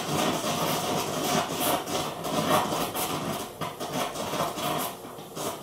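Oxyacetylene torch with a cutting head burning with a steady, rough rushing noise as its flame plays into a crucible of melting palladium.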